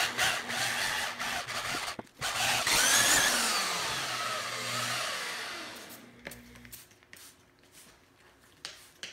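Foam wax applicator pad rubbed by hand over glossy painted sheet metal, applying Zymol carnauba wax. Rubbing strokes at first, then a louder stretch of about four seconds with a squeak that glides up and down in pitch, fading away after about six seconds.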